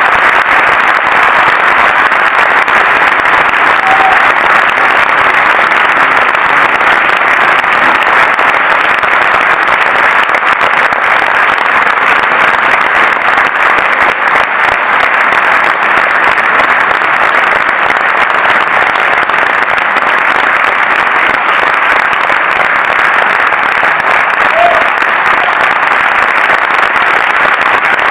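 Cinema audience applauding steadily, a dense sustained round of clapping.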